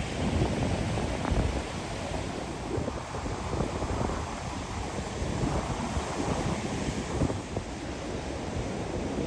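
Ocean surf washing up a sandy beach, with wind buffeting the microphone.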